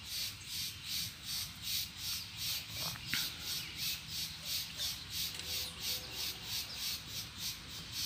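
An insect chirping in a steady, high-pitched pulse, about three pulses a second, with a brief single call about three seconds in.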